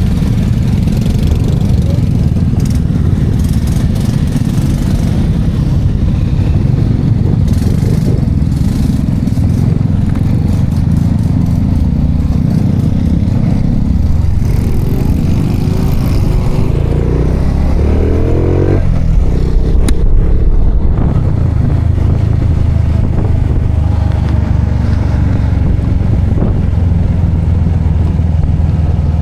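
Small-capacity motorcycle engine running while under way, with a steady low rumble. About halfway through the engine note climbs in pitch as it speeds up, then drops back sharply and settles.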